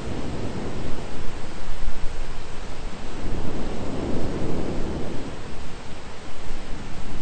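Thunderstorm ambience: a steady hiss of rain with a low rumble of thunder that swells and fades about halfway through.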